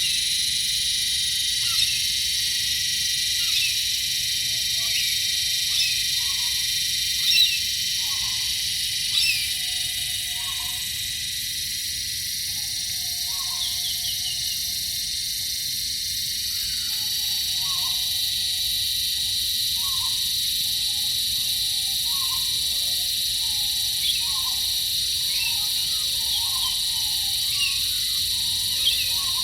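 Australian night wildlife chorus: a steady high insect trilling of cicadas and crickets, with short repeated animal calls every second or so, coming more often in the second half.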